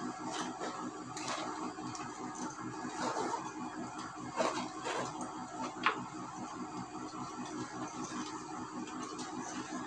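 A nylon sling bag being handled: its fabric rustling and its straps and buckles clicking now and then as it is adjusted and pulled on, the sharpest click about six seconds in, over a steady low background hum.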